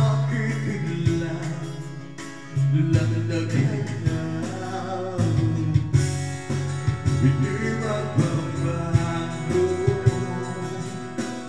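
A man singing a Tagalog pop ballad into a microphone over a backing track with guitar and bass; his amplified voice rises and falls over the steady accompaniment.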